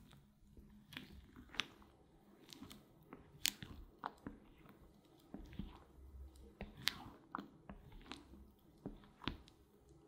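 Spatula folding a thick, airy berry soufflé mixture of whipped cream and cottage cheese in a glass bowl: faint wet squelches and irregular sharp clicks, a few a second, with the strongest ones about three and a half and seven seconds in.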